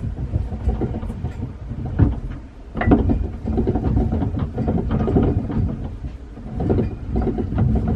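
Sailboat rudder stock and steering arm clunking as the wheel is turned: repeated dull clunks, 'dudumph, dudumph', over a low rumble.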